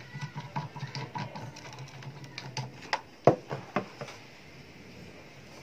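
A metal rod and an aluminium bar being handled on an acrylic sheet: light clicks and taps, with one sharp knock a little past three seconds in.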